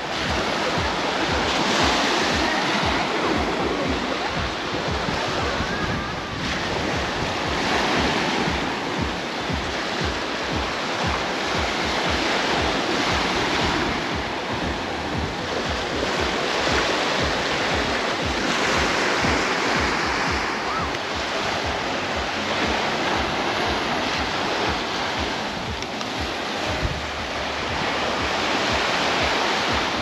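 Small sea waves breaking and washing up a sandy shore, swelling and fading every few seconds, with wind buffeting the microphone.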